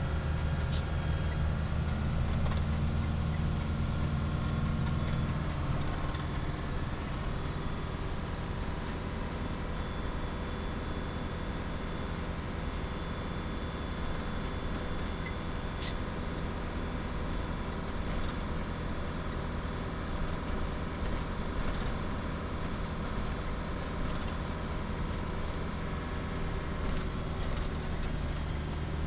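Steady engine and road noise of a moving vehicle heard from inside its cab: a continuous low hum with a few faint ticks.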